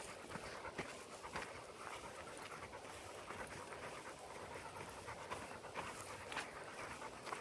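Dogs panting as they walk on the leash, faint, with light irregular ticks throughout.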